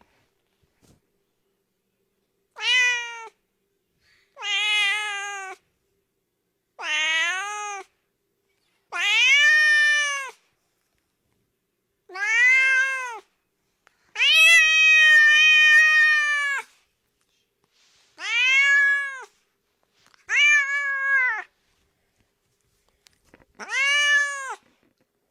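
Domestic cat meowing over and over: nine drawn-out meows, each rising then falling in pitch, with short silent gaps between them. The longest meow, about two and a half seconds, comes near the middle.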